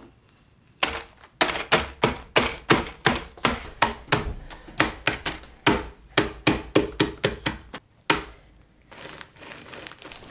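Wooden rolling pin whacking graham crackers in a plastic zip-top bag on a wooden countertop, crushing them to crumbs: a rapid run of sharp knocks, about three a second, that stops about eight seconds in. After that the pin is rolled over the bag with a fainter rustle.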